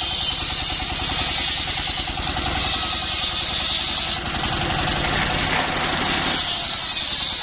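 Engine-driven circular saw rig running steadily. A higher hissing whine comes and goes in stretches of one and a half to three seconds as the blade cuts through mahogany.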